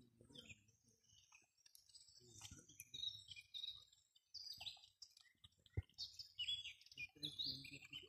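Small songbirds chirping and singing in quick, varied phrases, faint, with some low rustling and one sharp click about six seconds in.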